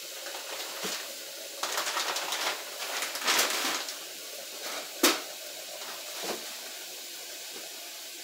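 Plastic bag crinkling as chicken bones and scraps are shaken out of it into a stainless steel stock pot, with one sharp clank about five seconds in and a smaller knock a little later, over a steady hiss.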